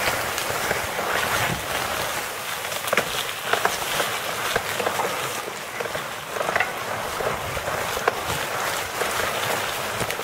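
Tall grass and brush swishing and scraping against a recumbent quad bike as it rolls along an overgrown dirt trail, with many small clicks and knocks from the bike going over rough ground.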